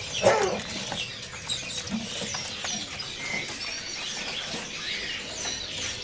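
Many caged songbirds chirping and twittering at once, short high chirps and whistles overlapping without pause, with a lower falling call just after the start.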